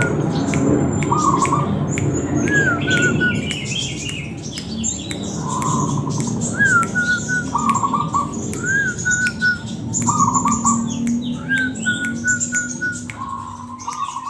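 Zebra doves (perkutut) cooing, the short stuttering phrases repeating every second or two, some with a rising-falling opening note and trailing short notes. Higher, thinner bird chirps sound above them.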